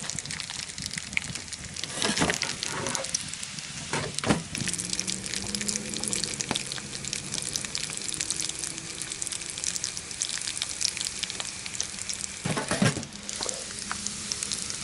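Pepperoni and bacon frying in bacon grease in a pan, sizzling with a steady crackle of small pops. A few louder knocks come about two, four and twelve and a half seconds in.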